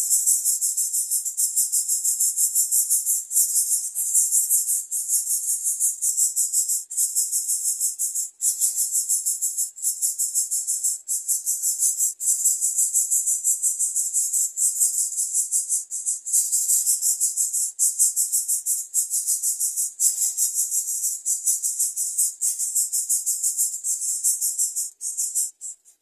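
Loud, high-pitched insect buzzing with a fast pulsing flutter, cutting off suddenly near the end.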